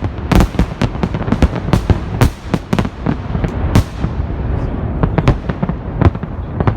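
Festive fireworks salute going off: rapid, dense bangs and crackle for the first few seconds, thinning after about four seconds to a few scattered bangs over continuing crackle.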